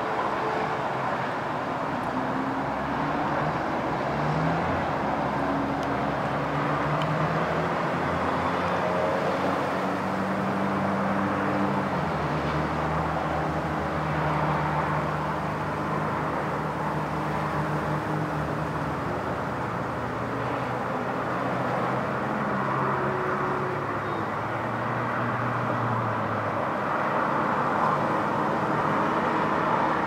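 Steady road traffic: cars passing, a continuous wash of tyre noise with low engine hums that slowly shift in pitch.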